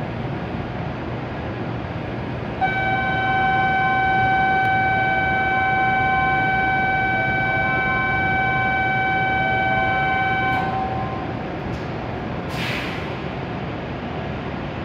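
Steady electronic departure warning tone sounding for about eight seconds at a Hokuriku Shinkansen platform, signalling that the train is about to leave; a short hiss follows about two seconds after it stops.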